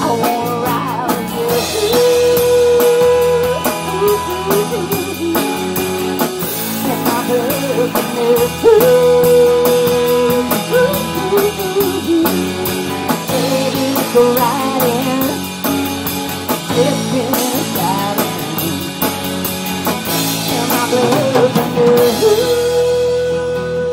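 Live rock band playing a song on drum kit, electric guitar and acoustic guitar, with a melody of long held, wavering notes over the top.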